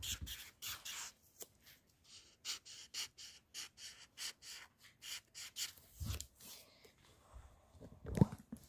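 Felt-tip marker scrubbing back and forth on paper in quick strokes, about three a second, colouring in. The strokes pause briefly about a second in, then stop near six seconds, followed by a couple of dull thumps near the end.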